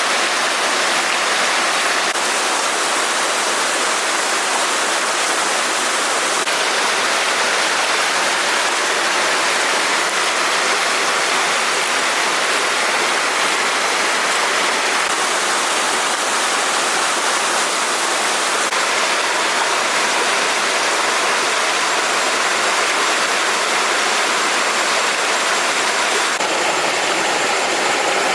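Stream water rushing, a steady even noise.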